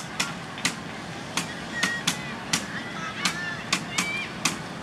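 A quick, uneven series of sharp knocks, about two a second, over faint voices.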